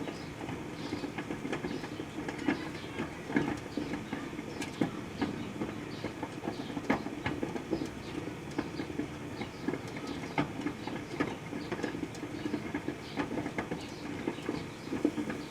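Proctor-Silex microwave oven running with sugarcane inside: a steady hum broken by frequent irregular sharp clicks.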